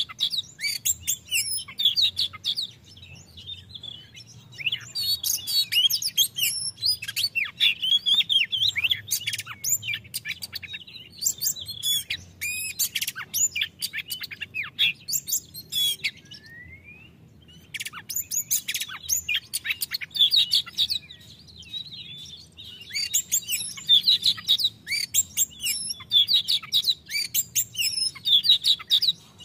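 Oriental magpie-robin singing a loud, clear full song of rapid, varied whistles and chattering notes, breaking off briefly a few times, with one slurred rising whistle in a lull about halfway through.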